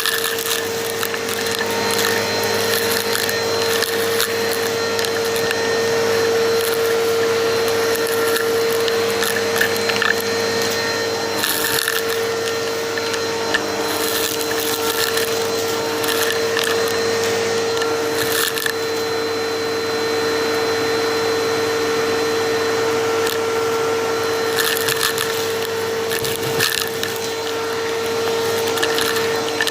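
Bissell CleanView vacuum cleaner running steadily with a constant whine, its suction crackling and crunching as it picks up debris, with thicker bursts of crackle at a few points.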